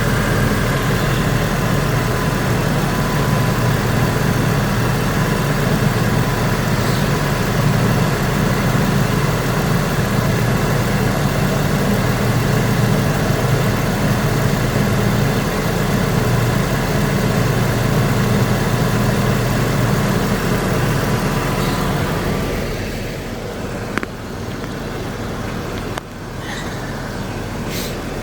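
2008 Saturn Vue idling with its air conditioning running during a refrigerant recharge: a steady engine hum and rushing noise. It eases off about three-quarters of the way through, and a single sharp click follows a second or so later.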